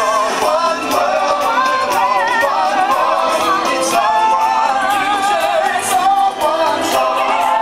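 Parade music playing, with voices singing over a beat.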